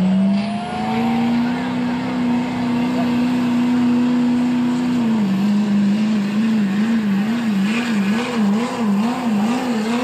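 Modified Chevy diesel pickup under full load pulling a sled: the engine revs up as it launches and holds a steady high pitch, then about halfway through the pitch drops a little and surges up and down about one and a half times a second.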